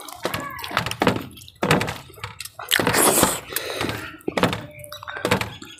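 Eating by hand from stainless steel plates: a string of dull knocks as fingers work the rice and fish against the metal, with a short scraping rustle a little past the middle.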